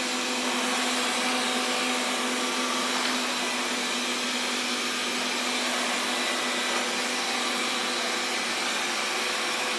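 Xiaomi Mi Robot Vacuum (Mijia) running steadily: an even hiss from its fan with a faint steady hum underneath.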